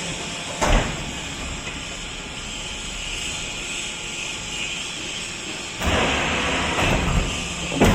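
Hydraulic pressed concrete block machine running with a steady drone, a sharp knock under a second in, and a louder stretch over the last two seconds that ends in a thump.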